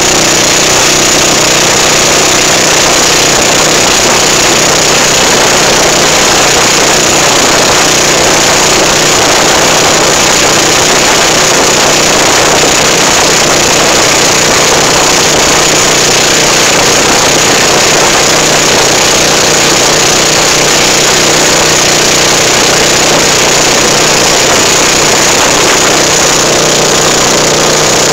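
Outrigger boat's engine running steadily under way, loud and unchanging, with a steady hiss over it.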